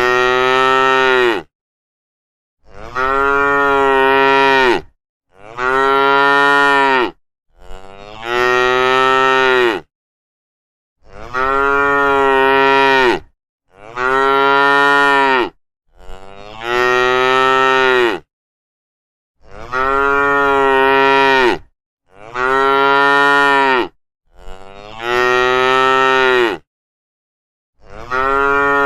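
Domestic cow mooing over and over: about eleven long moos in a row, each about two seconds, rising and then falling in pitch, with short silent gaps between them.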